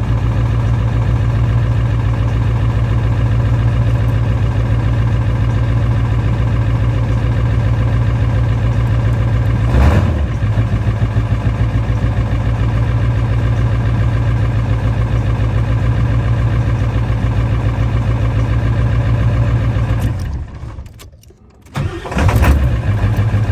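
7.3-litre V8 diesel engine idling steadily, with a brief rise about halfway through. Near the end it shuts off, then cranks and fires back up within about a second and settles into its idle again.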